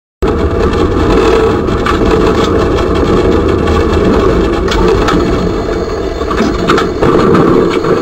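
Tram running noise in the driver's cab: a loud steady rumble of the running gear with scattered clicks and rattles as the tram slows down.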